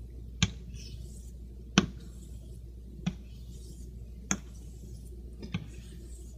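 Near-wedge straight razor being honed on a wet Shapton Pro waterstone to set the bevel: faint rasping strokes, each ending in a sharp click as the spine flips over on the stone, five times at a little over one-second intervals.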